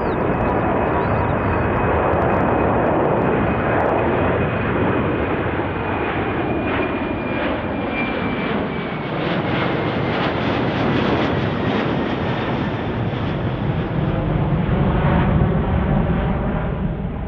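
Jet airliner engines passing close by: a loud, steady roar with a high whine that slowly drops in pitch, turning rougher and crackling midway.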